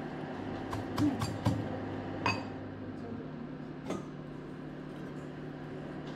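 Brass pestle knocking against a brass mortar in a few sharp metallic clinks during the first half, over a steady low hum.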